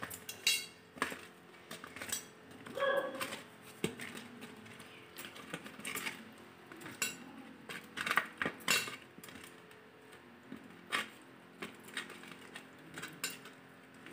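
Raw fish heads being rubbed with salt and turmeric by hand on a stainless steel plate: irregular light clinks, taps and scrapes against the steel.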